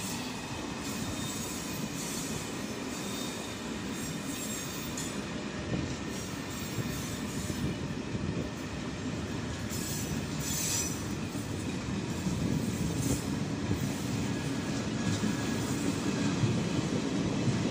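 Passenger train coaches rolling slowly over the tracks with a steady rumble. Now and then the wheels give a brief high squeal.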